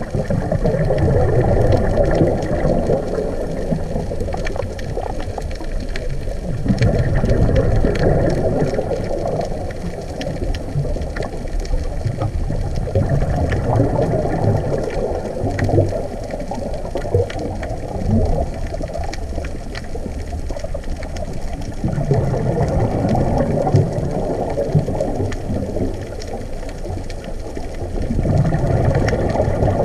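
Underwater, a scuba diver's breathing: exhaled bubbles rumbling and gurgling in bursts about every five to six seconds over a steady low rumble, with faint scattered clicks.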